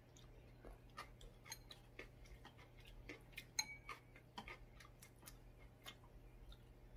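Quiet eating sounds: scattered small clicks and taps of wooden chopsticks against ceramic bowls, with one clearer ringing clink about three and a half seconds in, over soft chewing.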